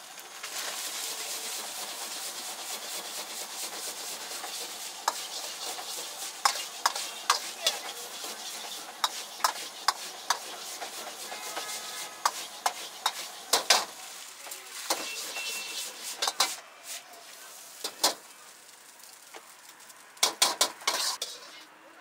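Egg fried rice sizzling in a wok over a gas burner while a metal ladle clanks and scrapes against the wok as the rice is tossed and stirred. The sizzle dies down about two-thirds of the way through, and a quick run of ladle knocks near the end comes as the rice is scraped out of the wok.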